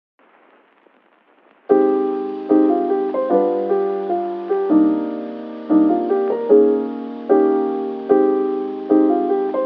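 Slow piano music begins about two seconds in after faint hiss, with a new note or chord struck roughly every second and left to ring.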